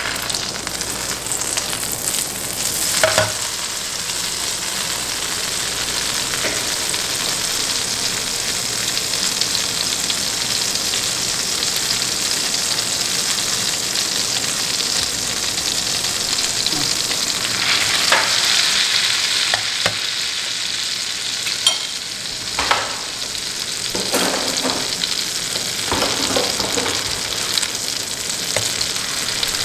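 Butter sizzling and foaming in a hot frying pan, a steady hiss with a few sharp clicks of utensils against the plate and pan. A little past halfway the sizzle swells as the egg-dipped sandwich is laid in to fry.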